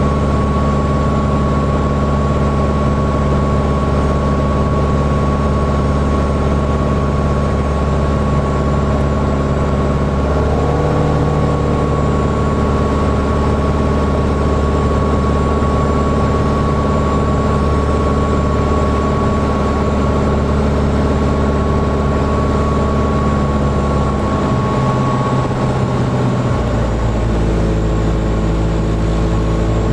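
Small propeller plane's engine and propeller droning steadily from inside the cabin during final approach. The engine tone shifts about a third of the way through and again near the end, as power is changed for the landing.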